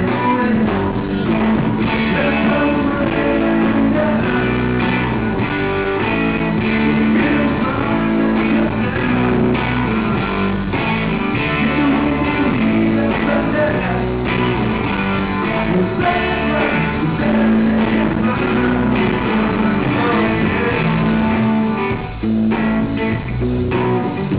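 Live pop-rock band playing, with electric bass and guitars under a male lead vocal.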